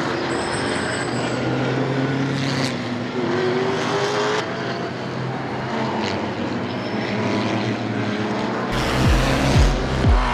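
Race car engines running and revving, cut together abruptly, with one engine's pitch rising. About nine seconds in, music with a heavy bass drum beat comes in, about two beats a second.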